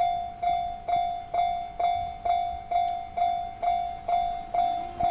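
Japanese railway level-crossing warning bell ringing, a pitched electronic ding repeating evenly about twice a second, each stroke dying away before the next. A steady lower tone joins near the end.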